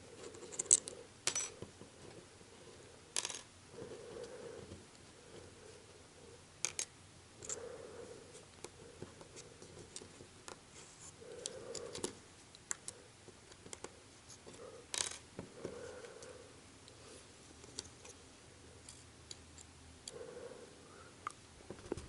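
Light, irregular clicks and taps of small tools and phone parts being handled while an opened iPhone 5 is fitted back together, with quiet stretches between them.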